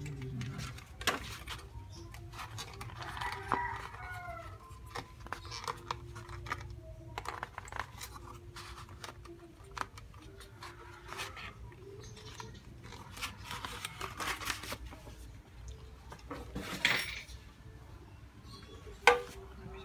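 Hard plastic parts of a Dyson V10 wall dock being handled and fitted: scattered clicks, knocks and paper rustling, with a few short chirping squeaks about three to four seconds in. A sharp click near the end is the loudest sound.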